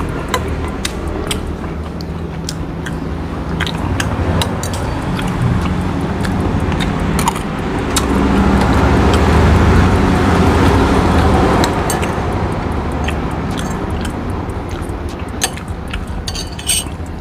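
Metal spoon and fork clinking and scraping against a ceramic soup bowl in many short, sharp clicks, over a low rumble that grows louder around the middle and then fades.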